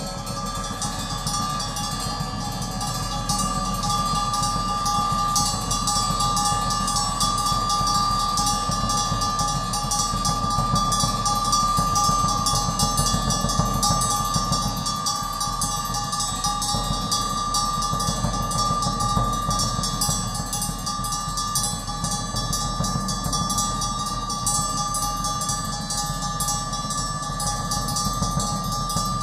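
Free-improvised drum-kit playing with dense, rapid metallic strikes and cymbal wash, over a steady high sustained tone.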